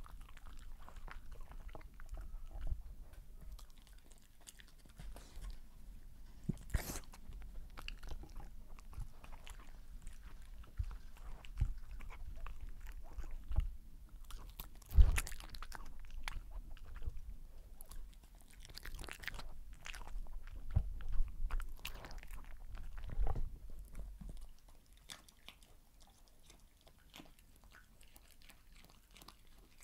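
A small dog chewing and crunching bites of sweet potato, black beans and cheese, close-miked: irregular bites and wet chews, with the loudest crunch about halfway through. The sounds thin out and go faint for the last few seconds.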